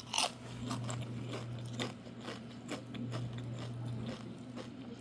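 Someone chewing a mouthful of food close to the microphone, a scatter of crunching clicks over a steady low hum.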